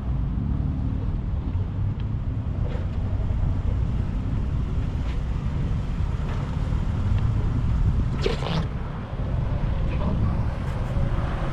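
2001 Jeep Wrangler TJ's engine running steadily at low speed as it crawls over uneven culvert pipes, with scattered knocks and a brief clatter about eight seconds in.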